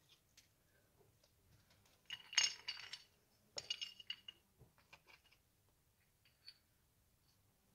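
Flat white shards clinking against one another as they are handled, in two short clusters of ringing clinks about two and three and a half seconds in, followed by a few lighter taps.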